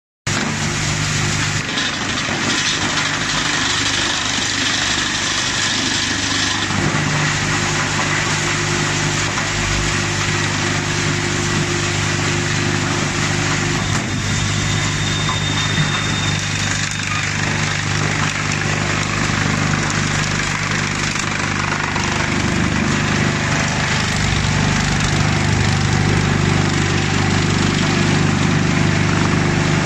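Wood chipper running continuously while chipping waste wood: a steady machine hum with a dense noise over it, shifting slightly about two and seven seconds in.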